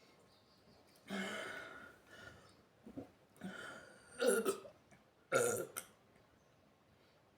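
A woman burping several times in a row, gas from a carbonated sparkling drink. The first burp comes about a second in and trails off, and the two loudest come a little past the middle.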